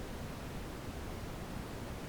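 Synthetic brown noise: a steady, deep rushing hiss, strongest in the low end, with no change or events.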